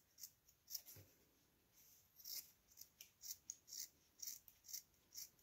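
Scissors snipping through a thin cotton sock to cut strips: a series of faint, short snips, about two a second.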